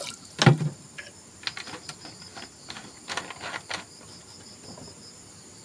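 Water poured from a plastic gallon jug into an open metal kettle, in uneven splashes, with a sharp knock about half a second in. A steady high-pitched whine runs underneath.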